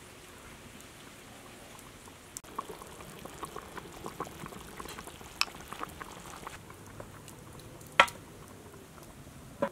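Chicken simmering in a large aluminium pot, bubbling and popping from about two seconds in. Near the end the pot lid knocks sharply against the pot twice, the first knock the loudest sound.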